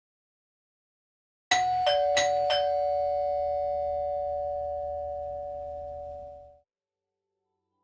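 House doorbell chime sounding ding-dong twice: four quick strikes on two alternating tones, high then low, that ring out and fade over about four seconds.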